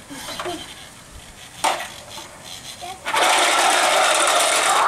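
Toy car rolling fast across a concrete patio, a loud steady rattling buzz of its wheels and motor that starts a little past halfway, after a short sharp knock.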